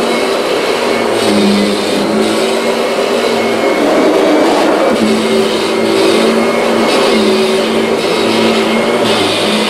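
Kirby G6 upright vacuum cleaner running at full power over a rug: a loud, steady motor hum with a rush of suction air, its pitch wavering briefly midway.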